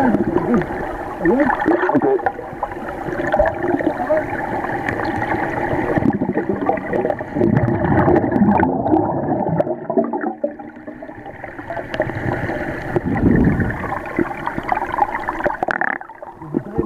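Churning water of a cascade heard underwater: a continuous muffled rushing with many bubbles gurgling and popping in short wobbling pitches, easing somewhat in the second half.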